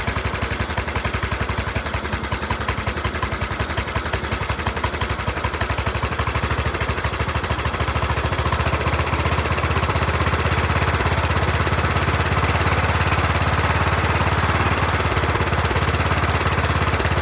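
John Deere LA110 riding mower's small gas engine running steadily at a fast idle while its carburetor idle screw is adjusted with a screwdriver; the engine note shifts slightly about halfway through. The high idle comes from an automatic choke that keeps sticking.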